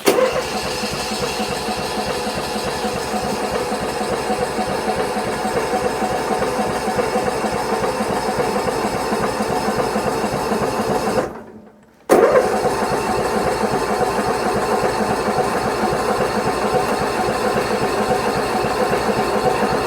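An engine being cranked by its starter in the cold without catching: two long, steady cranking runs, the first about eleven seconds, the second about eight, after a brief pause. The engine turns over but does not fire.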